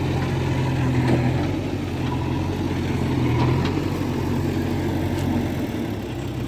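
Heavy diesel engine running steadily at idle, with a few faint knocks; its low note shifts slightly near the end.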